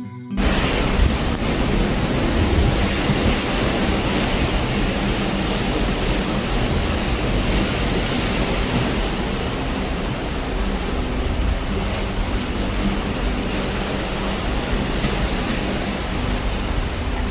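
Steady rush of ocean waves and wind around a cruise ship at sea, with an uneven low rumble underneath; it cuts in abruptly a moment in, as a brief music intro ends.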